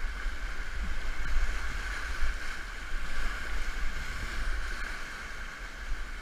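Whitewater rapid rushing around a kayak: a steady hiss of churning water over a low, fluctuating rumble.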